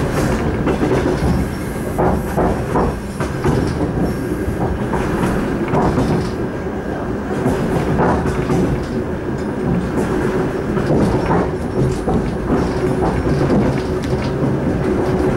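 Suburban passenger train running at speed, heard from inside the carriage: a steady rumble of wheels on rail with irregular clacks over the rail joints and a steady hum underneath.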